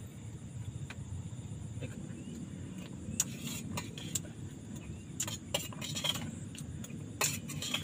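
Several sharp clicks and light metal clinks of small cooking things being handled, starting about three seconds in and coming thickest near the end, over a steady low rumble.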